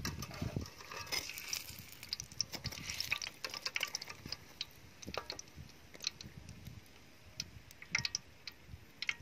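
Metal tongs clicking and scraping against a wire mesh skimmer and a metal wok while fried shrimp toasts are lifted out of hot oil, with a light crackle of frying oil during the first few seconds.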